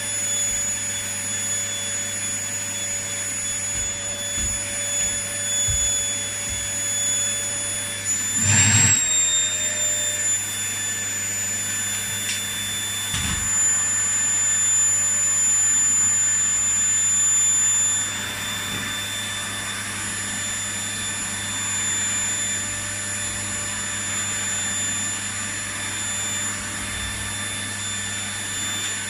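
Household vacuum cleaner running, a steady motor whine with a rushing hiss. About nine seconds in, the whine briefly shifts in pitch with a knock, and there is another knock a few seconds later.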